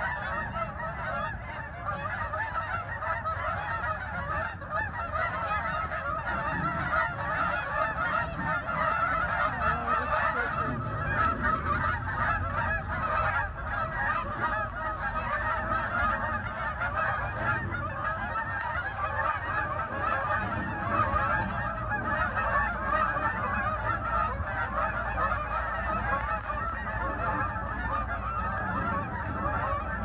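A large flock of geese calling as they fly overhead: a dense, unbroken chorus of many overlapping calls.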